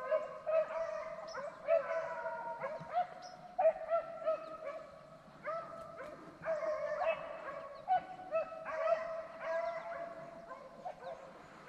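A pack of beagles baying together in full cry. Many overlapping, drawn-out bawls and yips follow one another without a break, the cry of hounds running a rabbit's track.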